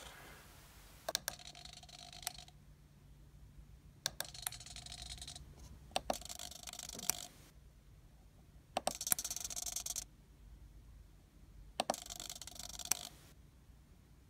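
A hobby micro servo whirring through its travel five times, about a second each run, as it throws a model railroad turnout back and forth through an actuator wire. Each run starts and ends with a sharp click.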